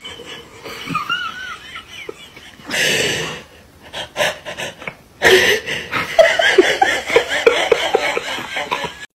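A person laughing: breathy snickers at first, then a long run of quick, repeated laughs in the second half.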